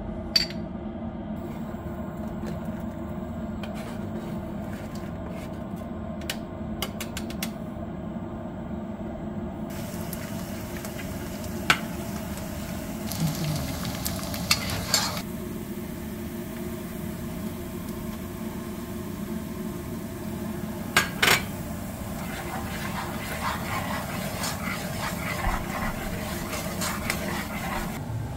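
Chopped onions sizzling in hot oil in a non-stick pot, stirred with a plastic slotted spoon, with a few sharp knocks of the spoon against the pot. The sizzling sets in about ten seconds in.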